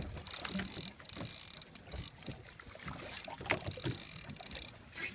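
Wind and sea noise aboard a small fishing boat, with patches of high hiss that come and go and short knocks from a fishing rod and reel being worked against a hooked fish.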